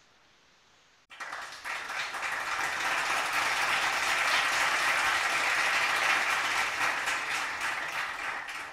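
Applause: a dense patter of many hands clapping that starts abruptly about a second in, swells, holds and fades near the end.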